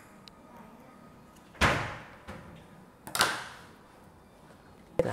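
Two quick rips of double-sided tape being pulled, about a second and a half apart, each fading over about half a second, then a short click near the end.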